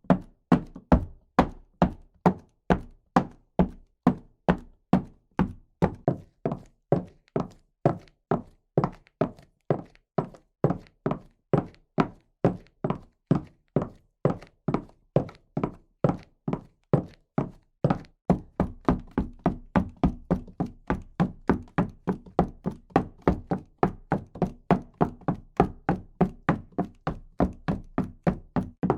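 Footsteps walking at a steady pace, about two to three dull thuds a second. A little past halfway the steps come slightly closer together, with a low rumble underneath them.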